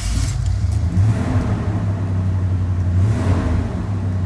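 Ford 5.4 L Triton V8 engine just started and running with a steady low drone that swells slightly twice.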